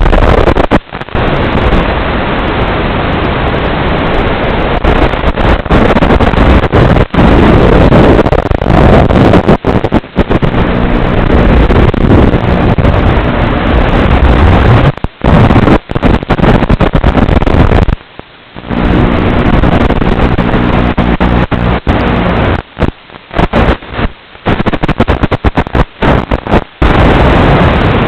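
Loud wind buffeting and motor hum from an Emax Hawk 5 FPV quadcopter in flight, heard through its onboard camera microphone. The sound cuts out abruptly for moments many times.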